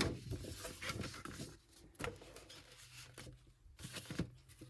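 Faint paper handling: soft rustles of a poster or printed sheets being moved, with a few light taps about every two seconds over a steady low hum.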